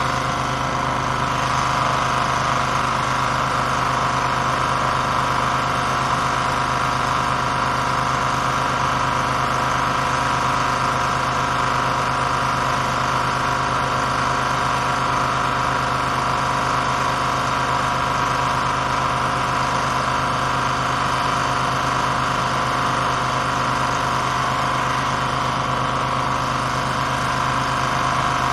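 Steady engine-like drone of the hydroblaster's high-pressure pump unit running while its water jet blasts, with a constant low hum under it.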